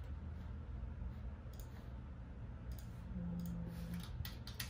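A few scattered clicks of computer keyboard keys, with a quick run of clicks near the end.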